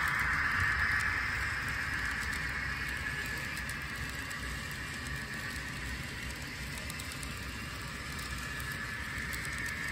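Model double-stack container train rolling past on its track, a steady whir of wheels and running gear. A higher hiss eases off over the first two seconds, then the sound holds level.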